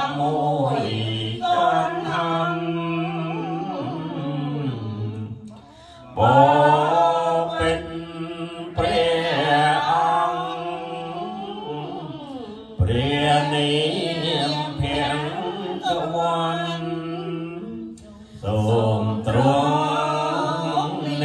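Khmer Buddhist chanting: laywomen reciting verses from chant books in a steady, sung recitation, a lead voice on a microphone. The chant runs in long phrases with brief breaks about 6, 12 and 18 seconds in.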